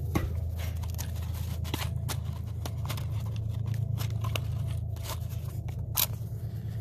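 Wooden matches handled and scraped against the striker strip of a matchbox: a run of small clicks and scratches, with a sharper strike near the end as a match flares alight.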